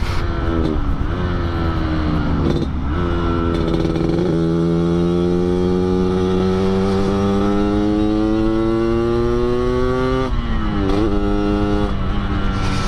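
Yamaha RX King two-stroke single-cylinder engine with an underbelly exhaust, accelerating hard through the gears. Its pitch climbs and drops at each upshift, several times in the first four seconds, then climbs steadily in top gear for about six seconds before falling away and dipping twice near the end.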